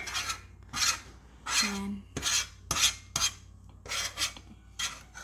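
A fork scraping across a metal baking pan in about eight short, separate strokes, gathering up spilled melted cheese and filling.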